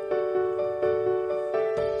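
Background music: a gentle piano melody, notes struck about twice a second.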